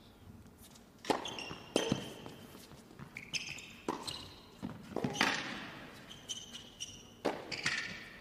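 Indoor hard-court tennis rally: a serve and then a run of sharp racket strikes on the ball, about five over several seconds, with sneakers squeaking on the court between shots.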